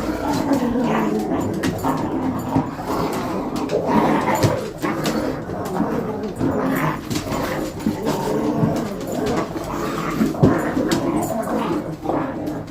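Several dogs play-fighting, growling continuously in overlapping rough bouts, with many short clicks and scuffles from their wrestling.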